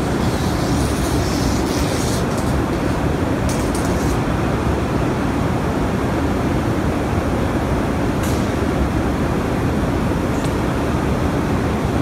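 Steady low rumble of a blast furnace cast house during tapping, as molten iron runs from the opened tap hole and pours into the ladle pit below, with a few brief crackles.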